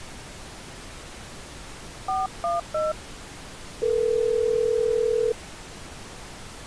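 Phone keypad dialing 9-1-1: three quick two-tone beeps about two seconds in. Then a steady ringback tone for about a second and a half as the call rings through. A faint steady hiss runs underneath.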